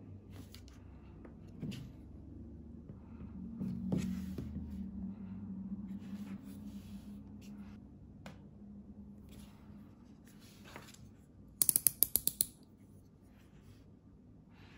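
Hands handling a smartphone with a glass screen protector and a razor-blade tool on a table: faint taps and rubbing, with a low hum through the middle. Near the end comes a quick run of about eight sharp clicks, the loudest sound.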